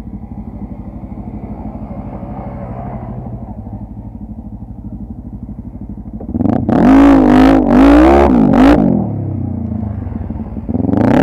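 ATV (quad bike) engine idling steadily, then revved hard for about three seconds, the pitch rising and falling, before dropping back to idle; a short quick rev comes near the end.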